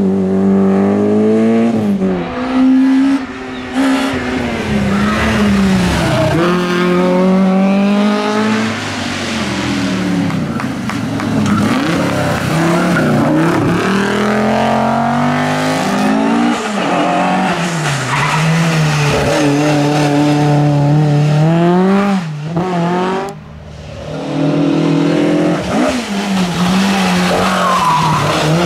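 Rally car engines at full throttle on a hill climb. The revs rise through each gear, drop at every upshift and lift, and climb again, over and over.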